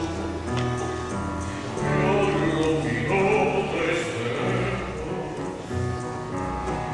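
A man singing a slow Spanish-language ballad through a microphone, over instrumental accompaniment with long held bass notes.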